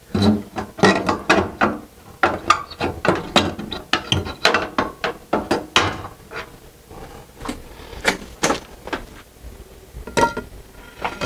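Rapid clicking and rattling of a fluorescent tube being twisted out of its sockets and lifted out of a metal ceiling light fixture, dense for about six seconds, then a few separate clicks near the end.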